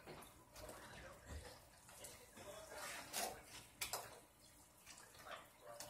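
Faint, scattered clicks and light knocks of plastic RC car parts being handled and fitted together, the clearest about three and four seconds in.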